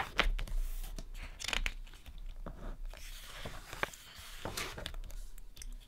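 Pages of a thick 256-page photobook being turned by hand: a sharp paper flick about the start, then scattered soft rustles and taps of paper.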